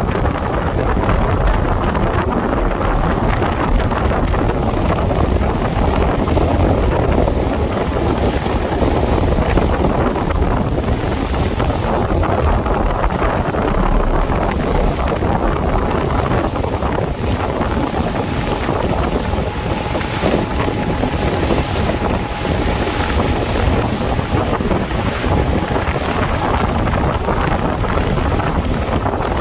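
Steady wind buffeting the microphone over the noise of a boat on the sea.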